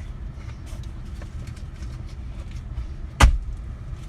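Steady low rumble of a truck idling, heard from inside the cabin, with faint light clicks and one sharp thump a little past three seconds in.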